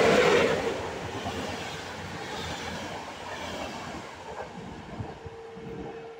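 EP07 electric locomotive and its Intercity coaches passing at speed close by: a loud rush as the locomotive goes past, then the coaches' wheels clattering over the rail joints, slowly fading. A faint steady tone comes in near the end.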